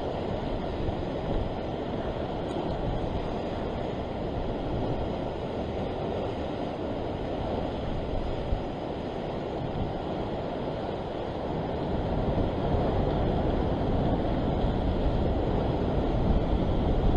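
Steady rush of sea surf washing below a rocky shore, with wind rumbling on the microphone; it grows a little louder near the end.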